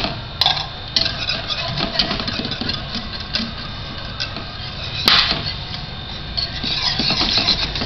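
Wire whisk beating milk powder into hot milk in a ceramic-coated pan, the wires scraping the pan and knocking its side in scattered clicks, the sharpest about five seconds in.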